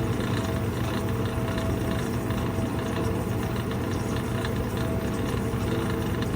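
Vintage Electrohome dehumidifier running steadily: the refrigerant compressor hums and the fan is quite noisy, with a constant low hum and a steady higher tone over a wash of fan noise.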